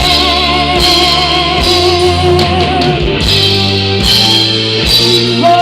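Live rock-style gospel band playing an instrumental passage between sung lines: drum kit and bass under a long held lead note with vibrato, most likely from the electric guitar.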